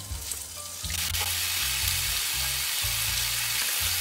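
Thin-sliced pork belly and minari sizzling on a hot grill pan, the sizzle swelling about a second in and then holding steady.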